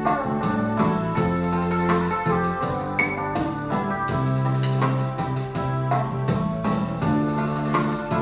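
Kurtzman K350 arranger keyboard playing a slow melody over its bolero-style auto-accompaniment, with sustained chords, bass and a steady drum beat.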